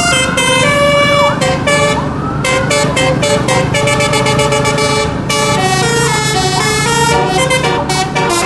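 Telolet bus horn driven by a Basuri module, playing a fast tune of short, changing notes in quick runs, with a steady low hum underneath.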